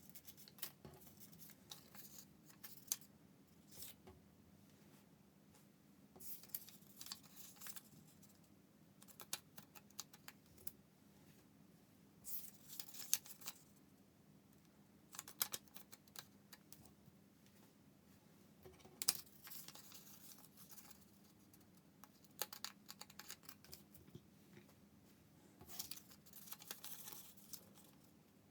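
Origami paper being folded and creased by hand: faint rustling and crisp crinkles in short, irregular bursts every few seconds.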